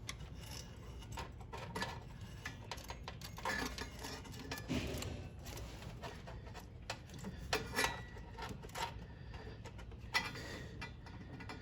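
Hands working a stainless-steel kickdown cable and its fittings: light, scattered clicks and rubbing scrapes of metal parts being handled and fitted, with a few sharper ticks.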